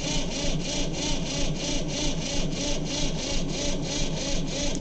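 Electric starter cranking a cold diesel tractor engine that does not catch, turning over in an even rhythm of about five beats a second. The cranking stops abruptly near the end.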